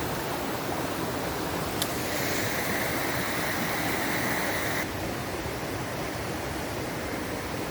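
Waterfall rushing steadily. A high, steady buzz joins in about two seconds in and cuts off suddenly a little before the middle's end.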